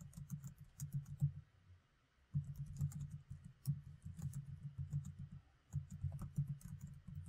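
Typing on a computer keyboard: runs of quick keystrokes, broken by two short pauses.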